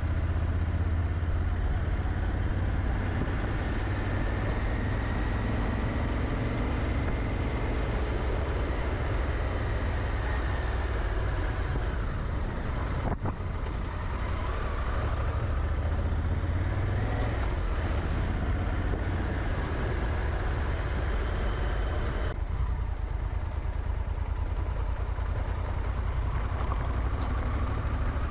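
Honda Africa Twin motorcycle's twin-cylinder engine running under way, its pitch rising and falling with throttle and gear changes, over a steady rush of wind and road noise.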